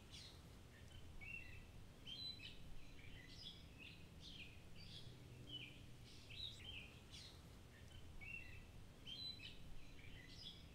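Faint birdsong: small birds chirping over and over in short high notes, over a low steady hum.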